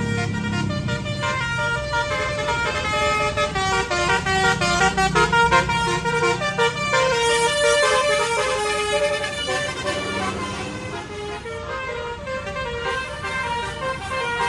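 A bus's 'telolet' multi-tone musical air horn playing a rapid tune of stepped notes, with low vehicle rumble beneath.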